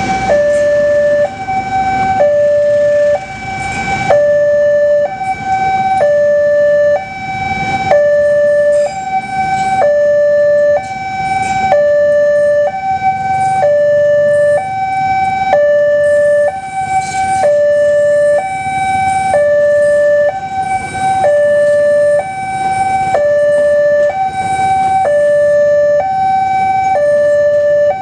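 Railway level-crossing warning alarm sounding a two-tone electronic signal, high then low, each tone about 0.8 s and repeating without pause. Under it, the coaches of the Malioboro Ekspres passenger train roll past with a steady low rumble of wheels on rails.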